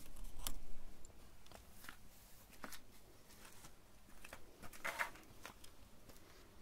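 Light handling noise: a low rumble and scraping as a wafer ice cream cone is pushed into a motorcycle's exhaust tip, then scattered faint clicks, the sharpest about five seconds in.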